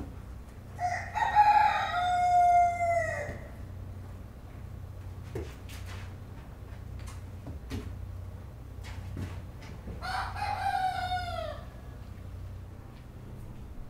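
A rooster crowing twice: a long crow about a second in and a shorter one near ten seconds in, each dropping in pitch at the end. A few faint short sounds fall between the crows over a steady low hum.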